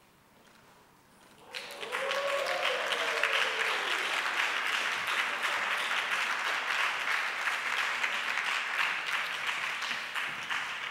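A roomful of people applauding, starting suddenly about a second and a half in and thinning out near the end.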